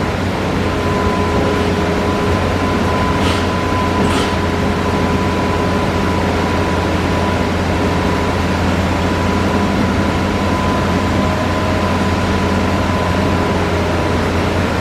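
Hitachi Zaxis-5G excavator's diesel engine and hydraulics running steadily, a low drone with a steady high whine over it. Two short hisses come about three and four seconds in.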